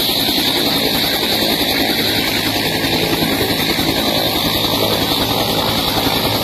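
Helicopter running on the ground: a steady, loud, high turbine whine over the even, rapid beat of the turning rotor.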